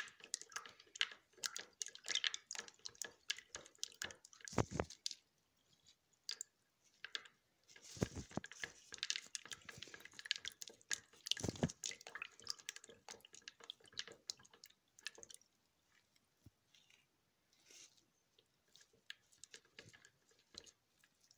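A utensil stirring an almost fully melted soap-making mixture in a plastic pitcher: irregular clicks, taps and scrapes against the plastic with a wet squish, and three heavier knocks. The stirring grows fainter and sparser toward the end.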